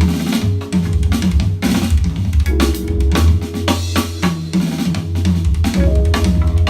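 Drum-heavy music with a strong bass line and dense kick, snare and cymbal hits, played back through a pair of Klipsch RP-150M bookshelf speakers.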